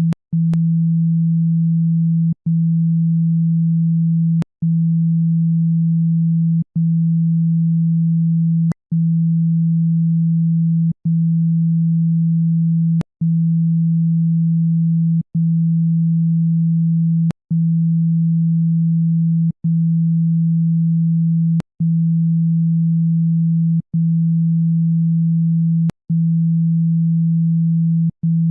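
Speaker-cleaning tone: a steady low electronic sine tone, played to vibrate dust and water out of a phone speaker, broken by a short click and gap about every two seconds.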